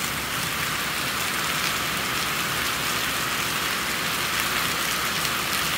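Heavy rain from a sudden summer shower falling onto rocks, plants and a gravel yard: a steady, even hiss of rain at a constant level.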